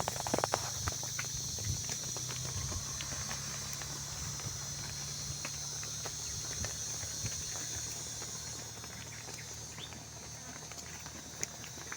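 Cattle moving about: scattered knocks and clatters, densest near the start and thinning out, over a steady low hum and a steady high hiss.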